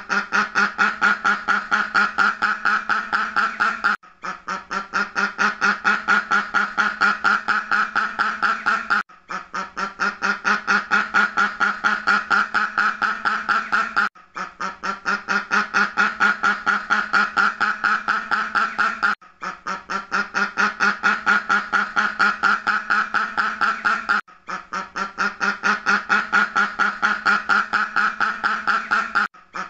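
Duck quacking in a rapid, even run of quacks, about five a second. The run is a roughly five-second loop that repeats, with a brief break each time.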